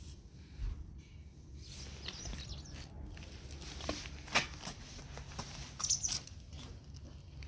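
A dog eating treats: irregular small clicks, snaps and rustling bursts of chewing and mouthing, the sharpest snap a little past four seconds in.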